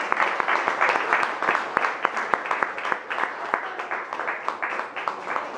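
Audience applauding: a dense patter of hand claps that eases off a little about halfway through.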